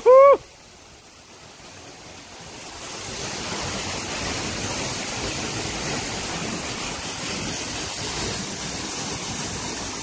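Waterfall rushing: a steady roar of water noise that grows louder over the first three or four seconds as the falls are approached, then holds steady.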